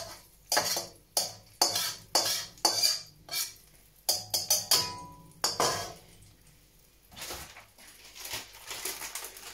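A slotted spatula scraping and knocking against a metal wok as food is stirred: about a dozen quick strokes over the first six seconds, then it stops except for one light knock about seven seconds in.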